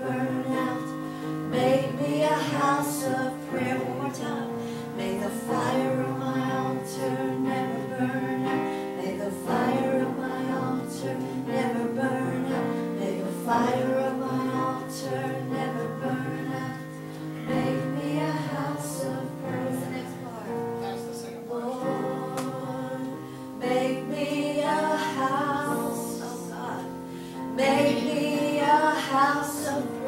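Gospel worship music: a woman singing, her voice wavering with vibrato, over sustained keyboard chords.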